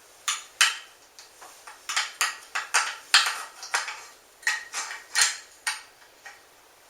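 Metal parts of a Mossberg 500 pump shotgun clicking and clacking against each other as the bolt is fitted back into the action: a string of about a dozen sharp, irregular clicks.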